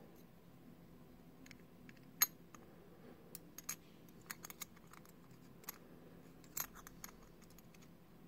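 Steel caseback of a Vostok mechanical watch being fitted back onto the case by hand: small, irregular metallic clicks and taps, the loudest a little over two seconds in and another near the end.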